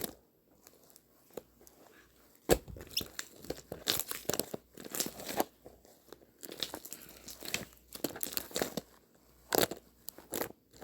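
Irregular crinkling, tearing and crunching noises: a close run of sharp clicks and short rustles with brief pauses.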